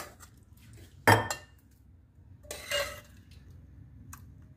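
Metal serving ladle clinking and scraping against cookware while scooping boiled chickpeas out of a stainless steel pot into a glass bowl. There is a sharp, loud clink about a second in and a second, longer clatter about halfway through.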